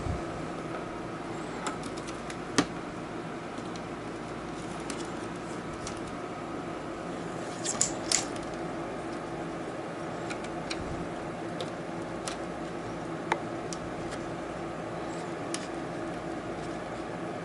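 Sharp plastic clicks and snaps as a laptop's screen bezel is pried loose with a small flat screwdriver, its clips releasing one by one: a loud click a couple of seconds in, a double snap near the middle, another click later, with fainter ticks between. A steady low hum runs underneath.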